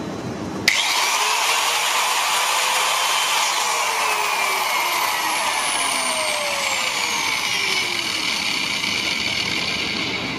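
Brakeless electric disc grinder (angle grinder) switched on with a sudden start about a second in. After a brief run it coasts down unbraked, its motor whine falling steadily in pitch for several seconds as the disc freewheels toward a stop.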